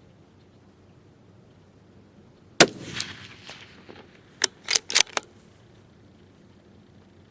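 A single shot from a Remington 700 PSS bolt-action rifle in .308 Winchester, with a long fading echo. About two seconds later comes a quick run of four sharp metallic clicks: the bolt being worked to eject the case and chamber the next round.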